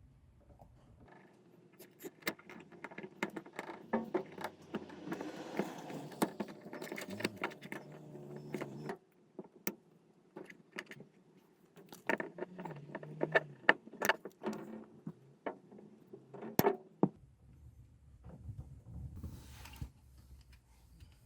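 Metal wire mesh panels being handled and fitted, clinking and rattling for several seconds, then a string of separate sharp clicks and knocks that ends with a quieter stretch.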